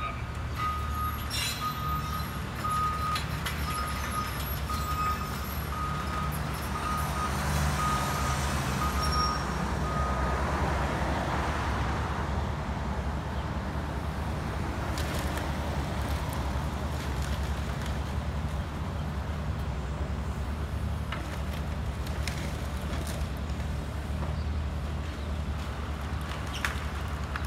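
Heavy vehicle engine running steadily with a reversing alarm beeping about every two-thirds of a second; the beeping stops about ten seconds in, while the engine runs on and swells louder for a few seconds around the same time.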